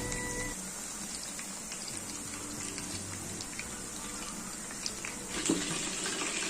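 Chicken pieces frying in hot oil: a steady sizzle with small pops and crackles.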